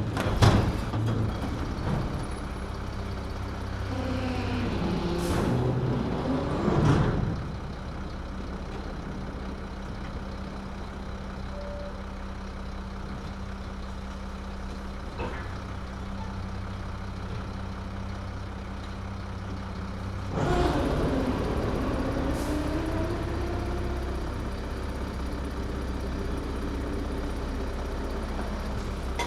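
Garbage truck engine running steadily at a low hum. Over it, a pitched whine rises and falls twice, once briefly a few seconds in and again for longer from about two-thirds of the way through, with a short hiss in each stretch. A loud bang comes at the very start.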